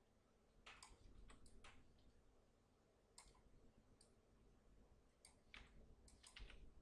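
Faint clicking of a computer mouse and keyboard in scattered clusters of a few clicks at a time.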